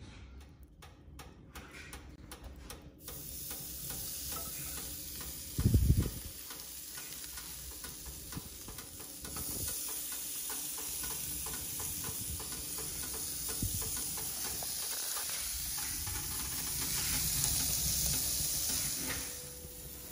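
Tandoori chicken kebabs sizzling and crackling on a Hellfire grill tray over the embers inside an open wood-burning stove. The steady hiss sets in about three seconds in, after a few soft clicks, and a single loud knock sounds about six seconds in.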